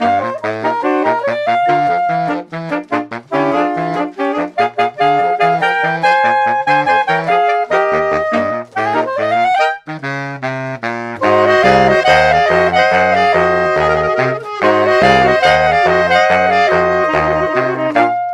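Background jazz music with a horn-like lead melody over a bouncing bass line; it becomes louder and fuller about eleven seconds in.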